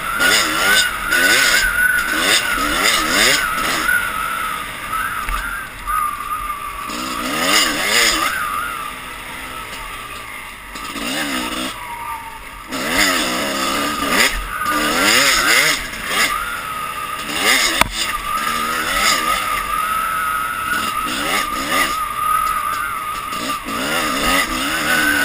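Dirt bike engine revving up and down under changing throttle on a trail ride. Its pitch rises and falls again and again, easing off for a couple of seconds near the middle before picking up again.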